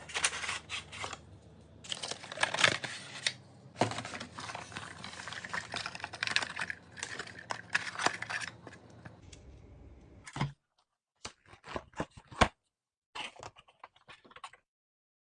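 Packaging being handled and opened: crackling, rustling and tearing of paper and plastic, then a run of short clicks and taps in the last few seconds.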